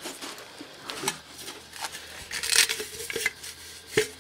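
Metal parts of a Stirling engine being handled: scattered clinks and light knocks of the steel cylinder pieces, a scrape a little past halfway, and a sharper knock with a short metallic ring near the end.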